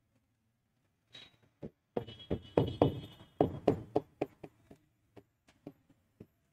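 Pen tapping and sliding on the glass screen of an interactive display board as figures are written: a quick, uneven run of taps and scratches that starts about a second in, is thickest and loudest in the middle, and thins out near the end.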